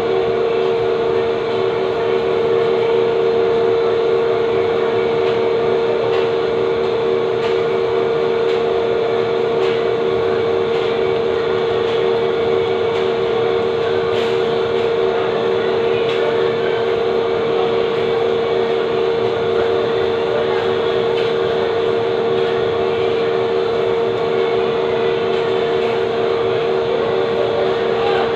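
Steady machine drone with a strong humming tone and no change in level or pitch.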